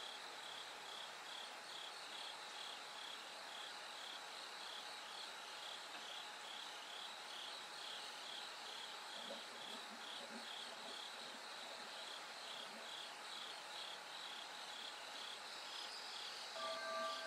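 Bell crickets chirping: short ringing notes repeated evenly about three times a second, over a steady haze of other insect song. Soft music comes in near the end.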